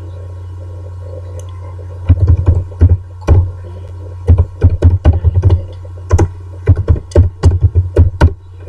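Computer keyboard being typed on: about twenty sharp, irregular key clicks starting about two seconds in. A steady low hum runs underneath.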